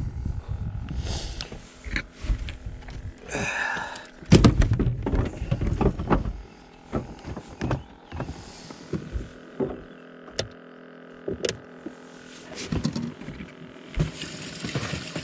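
Clunks, thunks and clicks of gear and fittings being handled on a fishing boat's deck, with heavy thumps a few seconds in. Near the end a steady rushing starts: water running into the boat's livewell.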